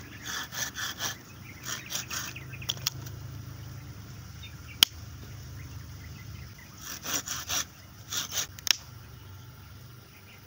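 Folding pruning saw cutting through a cassava stem with quick back-and-forth rasping strokes for about two seconds. A single sharp click comes near the middle, and a few more short rasping scrapes follow later.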